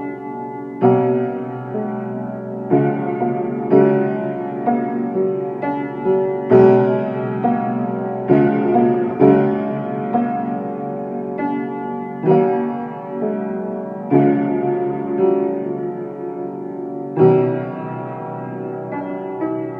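Slow piano music: chords struck about once a second and left to ring and fade.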